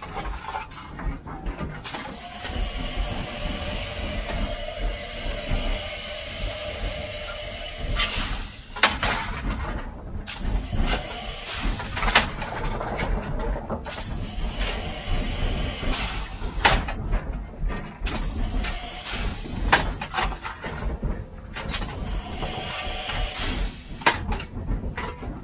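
Steam hissing in a steam locomotive's cab, steady for several seconds and then cutting in and out, over a low rumble, with a few sharp metallic knocks.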